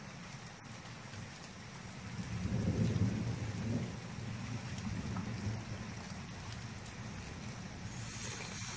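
Thunder rumbling low, swelling about two seconds in and dying away over the next couple of seconds, over a steady hiss of rain.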